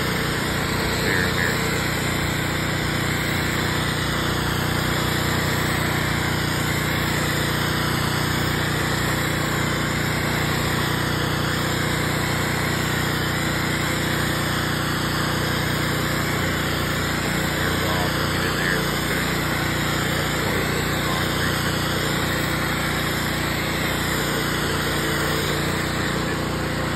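Pressure washer running steadily under load, its engine and pump humming at a constant speed, with the hiss of the wand's water stream hitting wet concrete.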